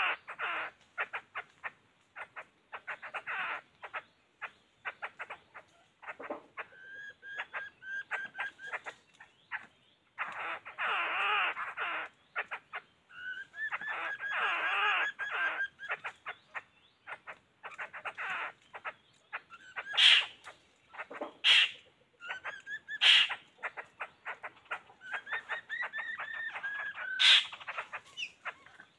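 Laughingthrushes calling: bursts of fast, rattling chatter and short whistled notes, with several loud sharp calls in the last third.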